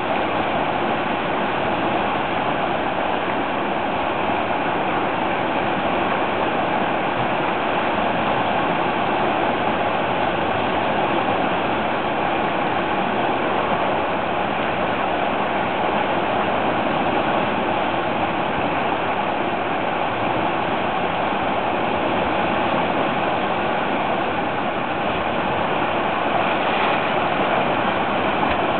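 Whitewater rapid rushing steadily over and around boulders: an unbroken wash of churning river water.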